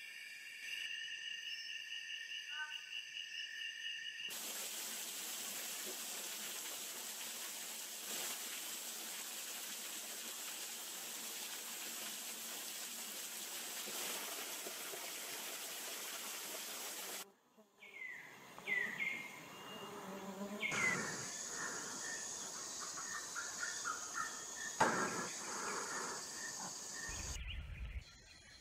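Night rainforest insects trilling in steady high tones, one of them in a fast pulsing trill. After about four seconds this gives way to a steady even hiss. In the last third come a few short falling chirps among scattered rustles.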